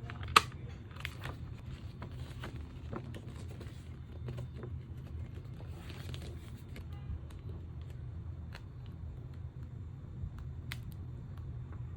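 Album packaging being handled: paper and plastic crinkling with scattered small clicks and taps, a sharp click right at the start and a brief rustle about halfway through, over a steady low hum.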